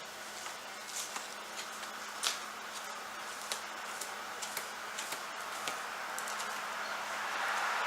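Scattered light clicks and taps of hand work at a bench, over a steady low hum. A rushing noise swells steadily louder near the end.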